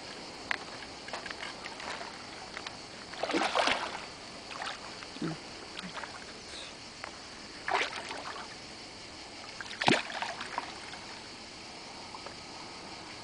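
Water splashing and sloshing as a carp thrashes at the surface beside a landing net in shallow water: a few separate splashes, a longer one about three and a half seconds in and the sharpest about ten seconds in, with small drips and sloshes between.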